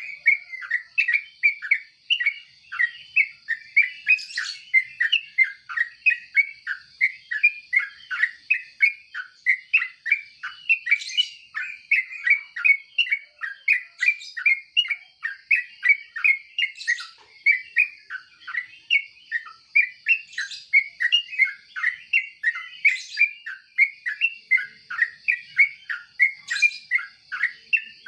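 Yellow-vented bulbul (trucuk) singing a long, unbroken run of short chattering notes, about three a second, with a steady high-pitched tone underneath.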